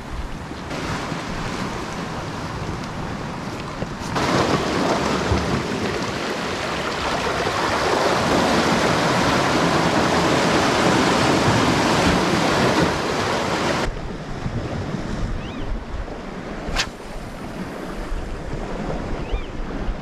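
Sea surf and running water washing against rocks, a steady rushing noise with wind on the microphone. It jumps louder about four seconds in and drops back about ten seconds later, and there is a single sharp click near the end.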